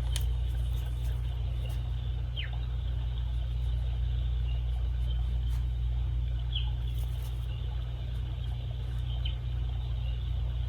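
Steady low hum with a faint hiss, and a few faint short high chirps, one sliding down in pitch.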